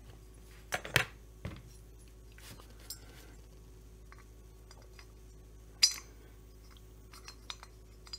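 Metal parts of a Stihl 025 chainsaw engine, the crankshaft and a crankcase half, knocking and clinking against each other and the bench as they are handled. There are a few sharp knocks about a second in, a louder single knock near six seconds, and light ticks near the end.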